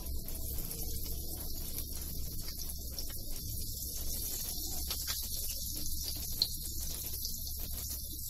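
Rice-flour-coated fish frying in hot oil in a pan: a steady sizzle with faint crackles.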